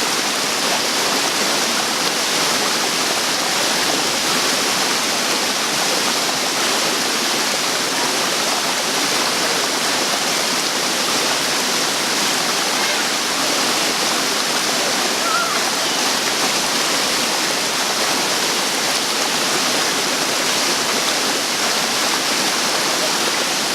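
Waterfall rushing: a steady, loud roar of falling water that does not change.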